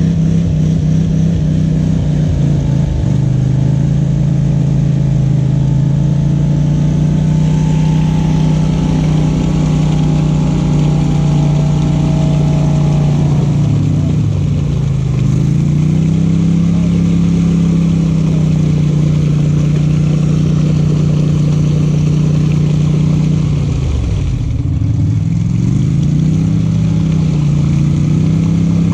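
Off-road vehicle's engine running steadily while driving. The revs dip and pick back up twice, about halfway through and again near the end.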